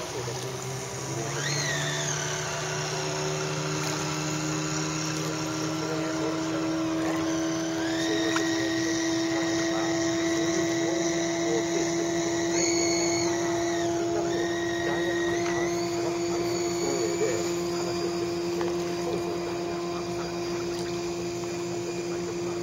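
Small electric motors of radio-controlled model boats whining, a steady low hum underneath and higher whines that glide up and hold level, then drop away, as the throttle changes.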